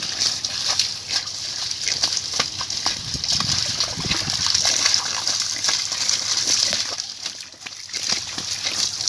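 A stream of water from a hose falling and splashing onto wet, muddy concrete: a steady hiss with scattered splatters. It eases briefly near the end.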